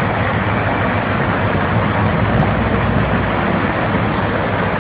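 Fast river water rushing steadily, with the heavy diesel engines of a wading KrAZ tanker truck and a bulldozer running underneath.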